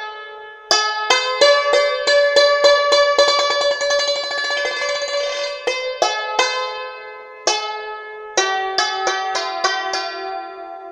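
Santoor (hammered dulcimer) struck with wooden mallets, playing a melody of ringing, decaying notes. A fast flurry of rapid strokes fills the first half; after that the notes come singly and more spaced.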